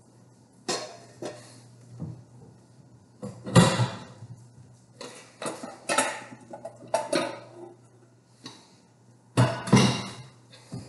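Glass bowl and dishes clinking and clattering as they are handled on a kitchen counter: a string of sharp knocks, loudest about three and a half seconds in and again near the end.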